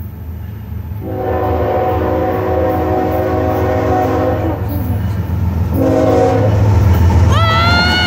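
Union Pacific freight locomotive's air horn sounding for a grade crossing as the train approaches: a long blast, a short one, then a louder, brighter blast that starts near the end as the locomotive draws level. Under it, the low rumble of the oncoming train builds steadily.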